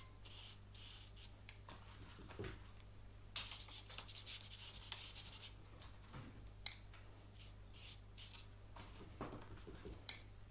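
Bristle brush loaded with oil paint rubbing and scratching across brown paper in faint, irregular strokes, with a few light taps. The longest stroke comes a few seconds in.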